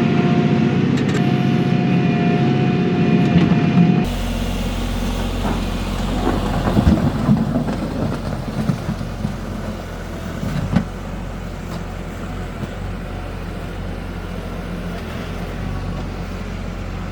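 Kioti NS6010 compact tractor's diesel engine running under load, with a steady high whine over the engine drone. About four seconds in the sound changes abruptly to a lower, steadier engine drone, with a few knocks as the loader bucket works the ground.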